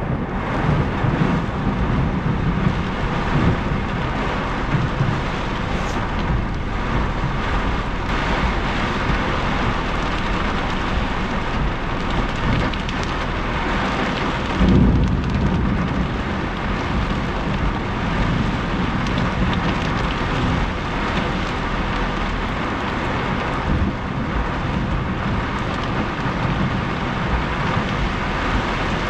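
Heavy thunderstorm rain drumming on a car's roof and windshield, heard from inside the cabin as a dense steady patter. About halfway through a low rumble of thunder swells briefly.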